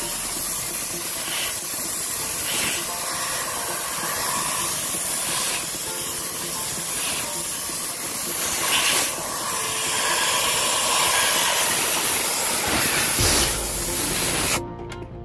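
Compressed-air blow gun blowing air over a rubber dashboard tray mat: a loud, steady hiss with a few short surges, stopping abruptly near the end.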